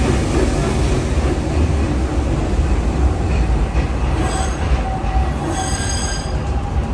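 Walt Disney World Railroad train running, heard from aboard: a steady low rumble of wheels on track, with high-pitched wheel squeals twice, about four and five and a half seconds in.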